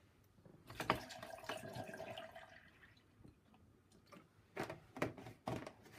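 Milk pouring from a carton into a glass blender jar of mango pieces: a faint liquid pour lasting about two seconds, starting about a second in. A few light knocks follow near the end.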